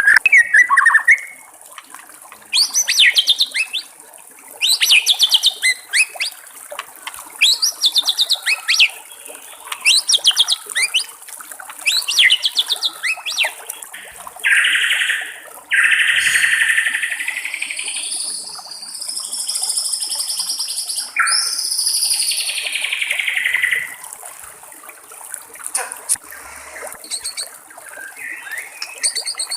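White-rumped shama singing: a run of short rapid phrases about one a second, then, from about halfway, longer loud whistled notes that slide up and down in pitch. A steady hiss of trickling water runs underneath.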